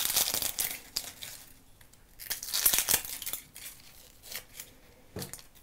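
Dry, papery onion skin crackling and tearing as it is peeled off the onion with a small knife. It is loudest in the first second and again around the middle, with scattered single crackles between.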